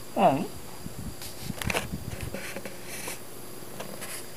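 Half-asleep cat giving one short answering meow that falls in pitch, just after the start. It is followed by soft rustling and small clicks.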